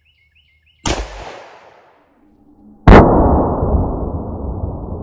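Two gunshots from a Gen 5 Glock 20 in 10mm, about two seconds apart. The second is much louder and rings on in a long, slowly fading echo. A bird chirps a few times just before the first shot.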